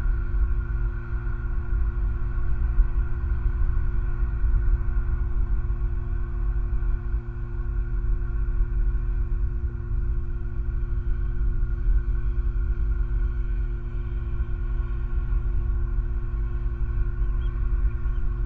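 Steady low rumble with a constant hum of a few steady tones over it, unchanging throughout: ambient outdoor noise on the nest cam's microphone.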